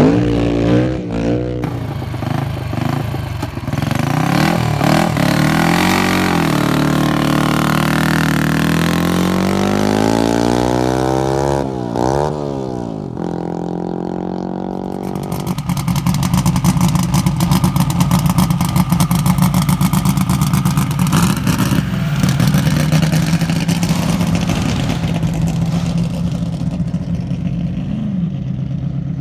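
Land speed race car engines running hard on the salt course. In the first half the engine notes climb and drop several times. From about halfway a louder, fast-firing engine holds a steady note.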